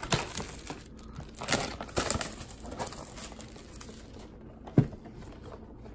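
Packaging of a trading-card mega box crinkling and rustling as it is unwrapped and opened. A few sharp clicks come through it, the loudest near the end.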